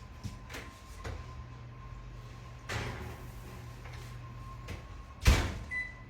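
Light kitchen clicks and a short rustle, then a loud thump of the oven door shutting about five seconds in, followed by a short high electronic beep from the oven's control panel near the end.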